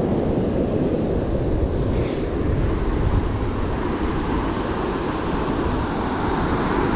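Surf washing and breaking on a sandy beach, a steady noise, with wind rumbling on the microphone.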